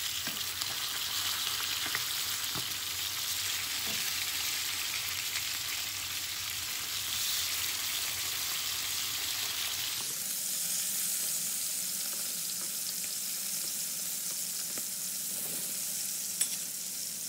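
Koi fish (climbing perch) frying in hot oil in a pan: a steady sizzle. About ten seconds in, the sound changes abruptly and loses its low hum.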